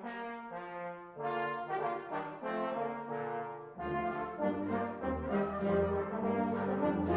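Brass-led orchestral film music, with held notes changing in a melody; lower instruments join about four seconds in and the music grows fuller and louder.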